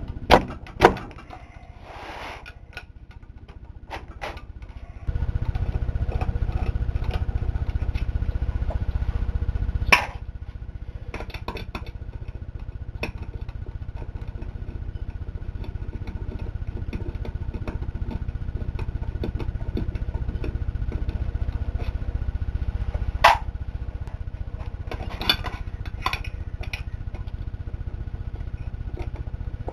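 Ratchet wrench clicking and metal-on-metal knocks as torqued-down bolts are worked loose on a Ford C4 transmission case, with two sharp knocks near the start. A steady low machine hum starts abruptly about five seconds in and runs under the tool noise.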